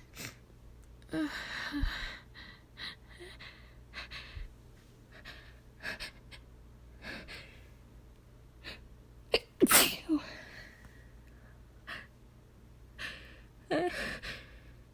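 A woman sneezing: a loud sneeze about two-thirds of the way through and another near the end, with short breaths and sniffs in between.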